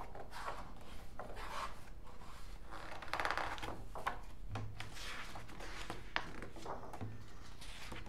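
Magazine pages turned and handled by hand: a run of irregular paper rustles and swishes.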